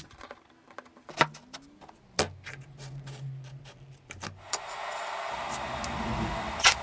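A few sharp metal clicks and knocks as a small steel die cover and a driver are handled. About two-thirds of the way through, a steady hiss of a TIG welding torch takes over.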